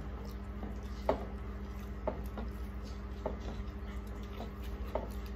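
Eating sounds of people eating rice and curry by hand from steel plates: a few short, wet clicks about once a second over a steady low hum.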